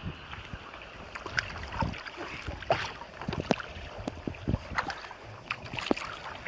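Kayak paddles dipping and splashing in water, with irregular small splashes and light knocks.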